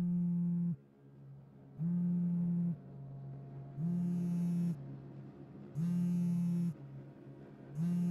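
iPhone vibrating for an incoming call, buzzing in even pulses about a second long every two seconds.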